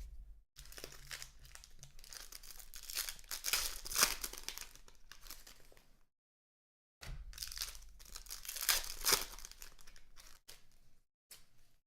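Foil trading-card pack wrappers being torn open and crinkled by hand, in two stretches of scratchy rustling with a short break between. A few light clicks come near the end.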